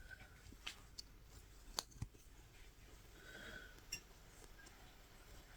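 Faint, scattered small clicks from a latch hook tool working yarn into the canvas, about five in all, with a soft rustle of yarn a little past the middle.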